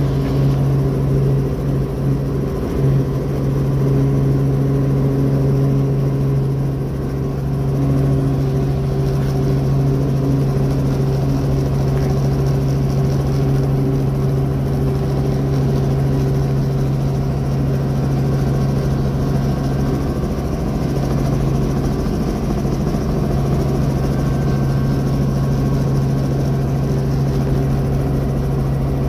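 Small helicopter's engine and rotors running steadily in flight, heard from inside the cabin as a loud, even drone with a strong low hum.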